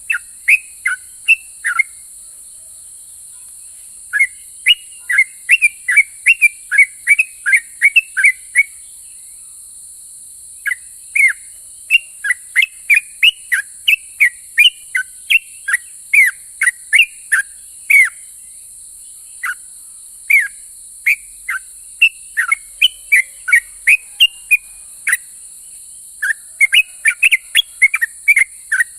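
Yellow-vented bulbul (trucukan) singing in rapid runs of short, sharp falling notes, about three to four a second, with brief pauses between runs. A steady high-pitched buzz runs underneath.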